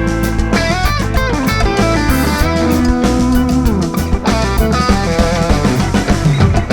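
Live rock band playing an instrumental passage: electric guitar lead with sliding, bending notes over bass and drum kit.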